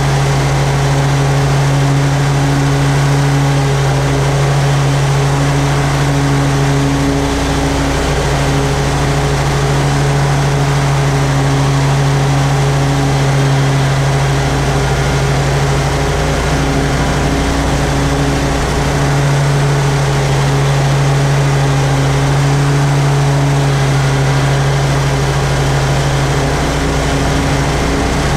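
Toro Z-Master 4000 zero-turn mower running steadily while mowing grass, its engine note wavering briefly a few times.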